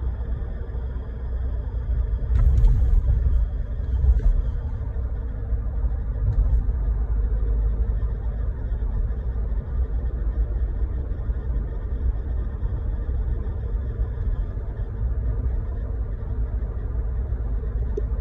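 2020 Ford Ranger driving, a steady low rumble with a thin, steady high-pitched whine above it, which the owner puts down to the 10R80 ten-speed automatic transmission. The whine fades for a while in the middle and comes back; two brief knocks sound a few seconds in.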